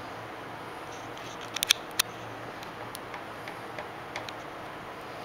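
A few sharp metallic clicks and clacks, with a quick cluster about one and a half to two seconds in and fainter ticks after. They come from the metal band being handled and clamped at a bandsaw's blade welder, over a steady low machine hum.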